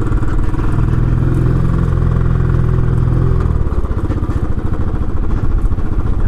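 Royal Enfield Classic 500 single-cylinder engine running at low revs while riding over rough ground. Its note strengthens and holds for a couple of seconds, then eases off about three and a half seconds in and carries on putting along.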